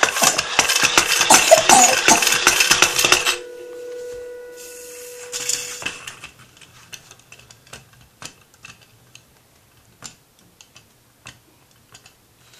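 Pump-action spinning top being pumped: a fast, loud rattling clatter for about three seconds. The spinning top then hums a steady tone that fades out about six seconds in, followed by faint scattered ticks.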